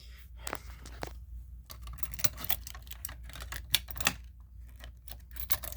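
Keys jangling and irregular metallic clicks as a reset key is handled and fitted into the lock of a fire alarm pull station.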